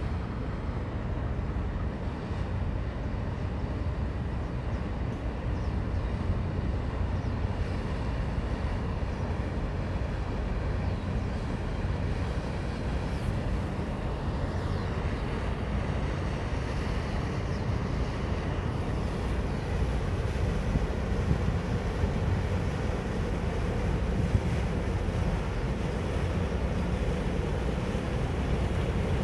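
Wind buffeting the microphone: a steady low rumble that grows a little louder in the second half.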